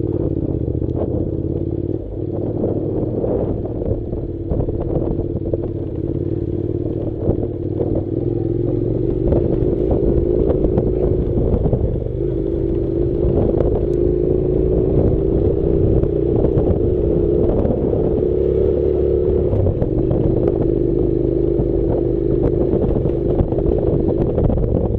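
Honda NC700's parallel-twin engine running at a fairly steady pitch over a dirt track, with stones and loose parts clattering throughout.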